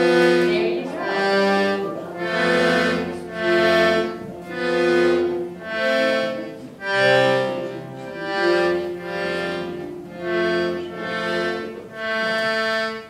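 A small piano accordion played by a young child: a dozen or so short, swelling chords, about one a second, each starting and fading with the bellows.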